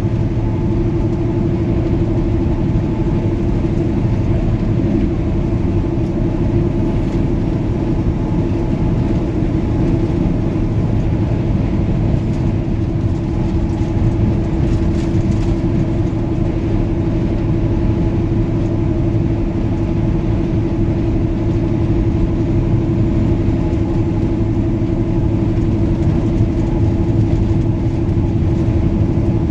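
Semi truck's diesel engine running steadily at highway cruising speed, heard from inside the cab as a constant low drone mixed with road and tyre noise.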